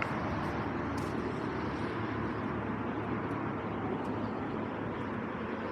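Steady hum of city road traffic, with a couple of faint ticks about a second in and about four seconds in.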